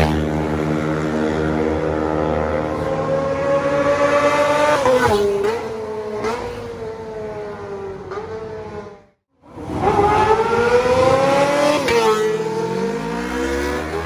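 Kawasaki ZX-25R's 250 cc inline-four through a Leo Vince GP Corsa Evo short full-system exhaust, revving up under way with the pitch climbing and dropping back at each gear change. The sound cuts out for a moment about nine seconds in, then climbs again.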